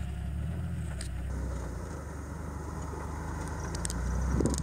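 Engine of a lifted, modified Jeep Cherokee running steadily at low revs as it crawls over a rutted dirt trail, growing a little louder near the end, with a few light clicks of stones or dirt under the tyres.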